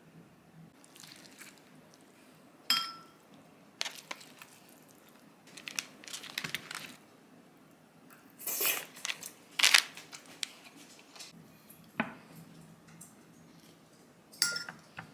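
Plastic film crinkling as it is peeled off plastic food trays, between sharp clinks of ceramic bowls and dishes; two of the clinks ring briefly, one near the end.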